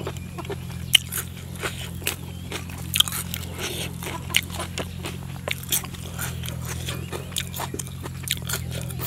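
A person chewing a mouthful of food close to the microphone, with irregular wet smacks and small crunches.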